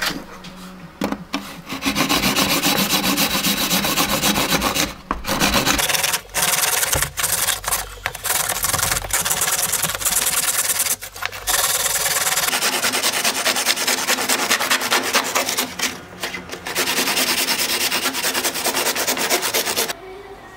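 Handsaw cutting through a black plastic air-inlet duct fitting in rapid back-and-forth strokes. There are a few brief pauses, and the sawing stops shortly before the end.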